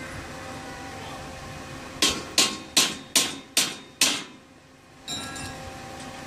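Six quick hammer blows on metal, about two and a half a second, each ringing briefly; they start about two seconds in.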